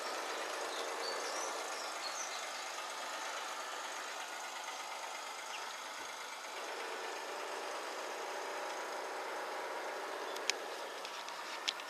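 Garden-railway model locomotive and its wagons running along the track: a steady mechanical hum, with two sharp clicks near the end. Faint bird chirps in the first couple of seconds.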